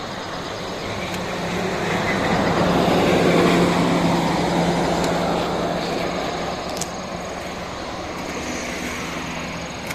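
A vehicle passing by: a rushing noise that swells over about three seconds and fades away again, over a steady low hum.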